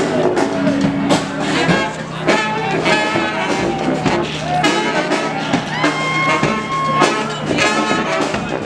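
Brass band playing in a street parade: horns playing a melody over regular drum hits, one horn holding a long note about six seconds in.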